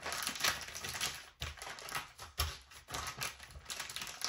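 Plastic vacuum-sealer bag crinkling and crackling irregularly as hands press ground beef flat inside it.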